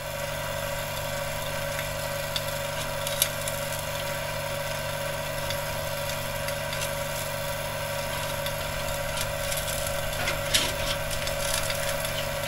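A motor running steadily at a constant pitch, with a few light metallic clicks from tools.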